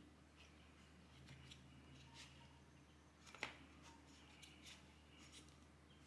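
Near silence with faint handling taps and clicks as a jade gua sha stone and jade roller are moved in a gift box's insert tray, one sharper click about three and a half seconds in. A faint steady hum runs underneath.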